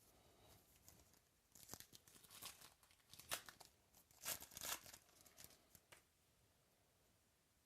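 Faint crinkling and tearing of a trading-card pack's foil wrapper being torn open and handled, in short crackly bursts, the loudest about three and four and a half seconds in, then quiet.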